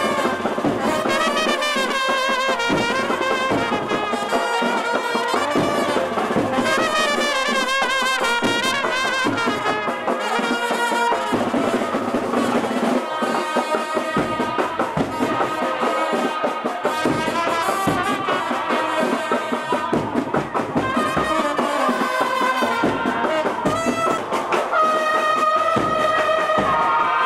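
Brass band playing a melody over drumbeats, the horn notes wavering in pitch.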